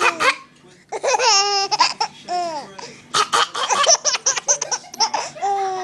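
A baby laughing: high-pitched squealing laughs, with a rapid run of short laughs from about three seconds in, ending on a falling squeal.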